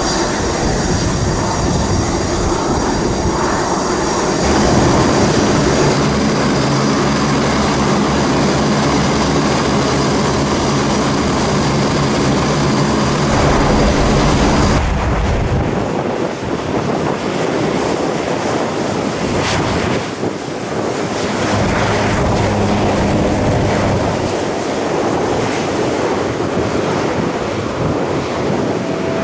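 Aircraft engines running. First the jet engines of a CC-144 Challenger as it taxis, with a hissing whine. Then the turboprops of a CC-130J Hercules, with its six-blade propellers turning, hum steadily, and a Hercules is rolling on the runway near the end.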